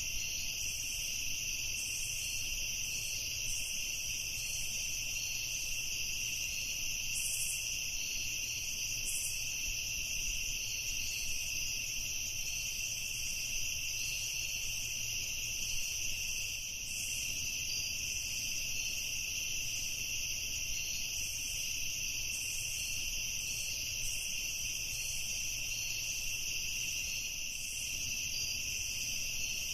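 Evening chorus of crickets and other insects trilling steadily and without pause, a dense high-pitched chirring.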